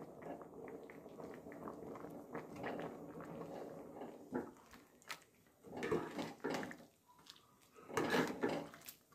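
Steel spoon stirring a simmering yellow pea and potato curry in a pan: soft wet stirring and sloshing, with two louder stretches of stirring about six and eight seconds in.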